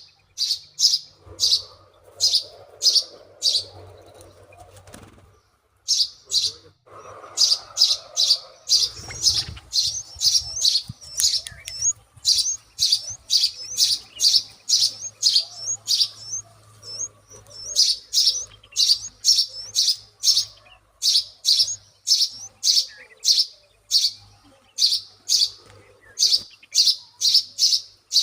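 Baby birds giving high-pitched begging chirps in a quick, steady series, about two to three a second, with a brief pause about five seconds in.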